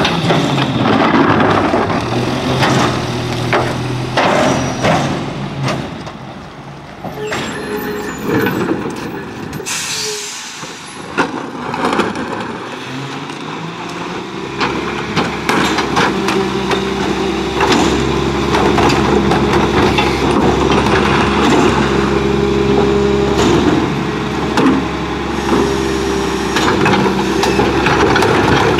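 Mack MR garbage truck's diesel engine running steadily, with a short air-brake hiss about ten seconds in as the truck stops. Carts knock and clatter as they are tipped into the McNeilus rear-loader hopper.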